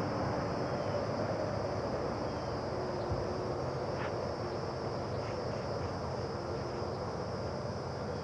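Steady outdoor background: a constant high insect drone over a low rushing hiss, with a few faint short chirps and a single click about halfway through.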